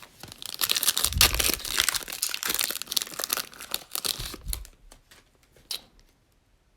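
A trading card pack wrapper being torn open and crinkled by hand for a couple of seconds, a dense plastic crackle that dies away into a few small clicks near the end.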